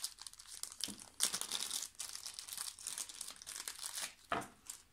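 Thin clear plastic bag crinkling as hands work a metal miniature out of it, in irregular rustling bursts that stop shortly before the end.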